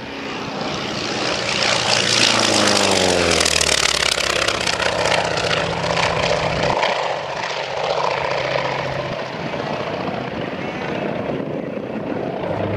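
Grumman FM-2 Wildcat's Wright R-1820 nine-cylinder radial engine and propeller on a low, fast pass: the sound swells over the first two seconds, drops in pitch as the plane goes by, then keeps running steadily as it climbs away.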